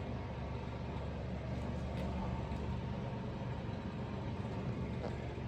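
A machine running steadily with a low, even hum.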